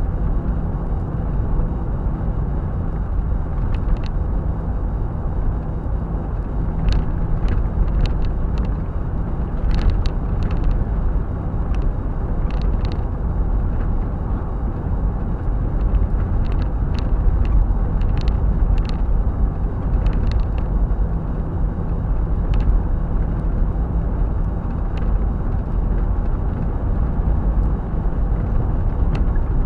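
Car cruising at highway speed, heard inside the cabin: a steady low rumble of tyres and engine, with scattered light clicks, most of them in the middle of the stretch.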